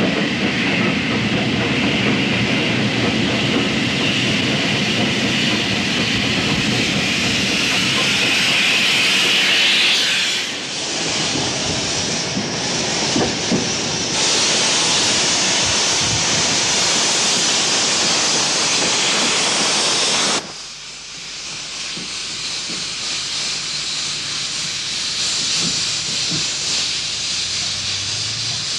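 Steam locomotive sounds: a steady mix of low running noise and steam for the first ten seconds or so, then a loud, steady hiss of escaping steam. About two-thirds of the way in the hiss cuts off abruptly, leaving a quieter hiss.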